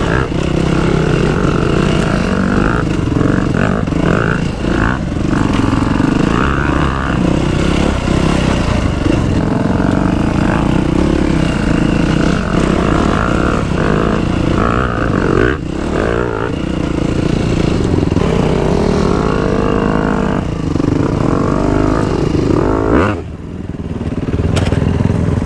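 Dirt bike engine running under throttle on a rough climb, revving up and down, with the occasional knock. Near the end the throttle closes, the sound drops away briefly, and the engine settles to a steadier idle.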